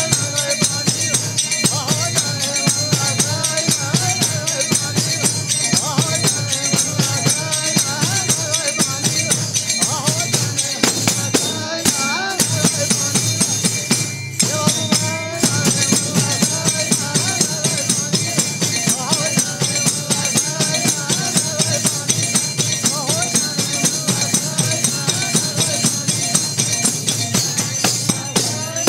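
Bhajan music between sung verses: jingling percussion keeps a fast, steady beat under a melody line.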